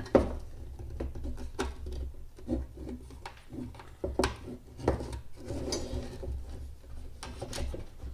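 Handling noise from a strobe light being taken apart by hand: scattered knocks, clicks and rubbing of its housing, with a sharp knock right at the start.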